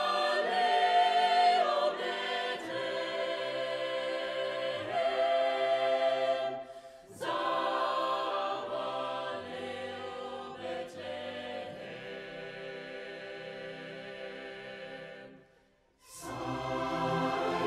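A choir singing sustained chords in a slow piece. The singing fades out about fifteen seconds in and a new passage starts a moment later.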